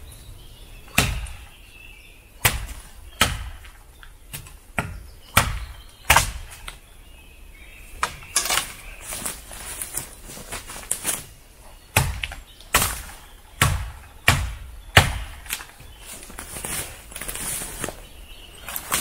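Fiskars XA3 machete chopping into a standing spruce trunk: a long run of sharp blade strikes into the wood, irregularly spaced at roughly one a second.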